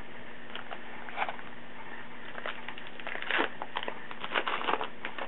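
Trading cards and their foil pack wrapper being handled: irregular crinkles and short papery clicks, busiest in the second half.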